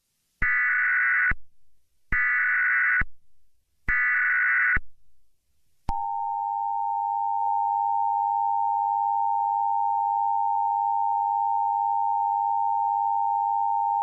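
Emergency Alert System SAME header: three bursts of digital data tones, each about a second long and a second apart. About six seconds in, the two-tone EAS attention signal begins and holds steady for about eight seconds, announcing a Shelter In Place Warning alert.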